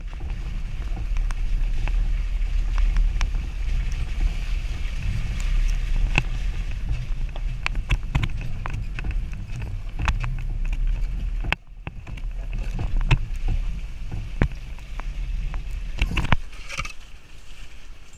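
Jeep Wrangler crawling along a rutted, muddy dirt trail: a steady low rumble of engine and drivetrain, broken by frequent knocks and rattles as the body and mounted camera jolt over the ruts.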